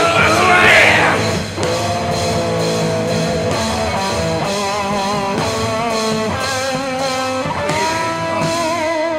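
Guitar-driven punk/grunge rock recording in a passage without vocals: guitars hold sustained, wavering notes over bass and drums. A loud, bright swell fills the first second and a half, then the level dips briefly before the band plays on steadily.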